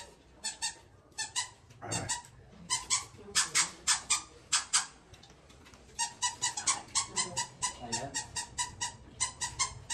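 Eating sounds of people eating with their hands: quick, wet mouth clicks and smacks from chewing and sucking on chicken. They come in runs, at times four or five a second.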